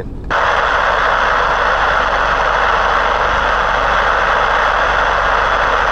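Radio receiver static: a steady, even hiss from the CB radio that comes on suddenly just after the start, between transmissions on a long-distance skip contact.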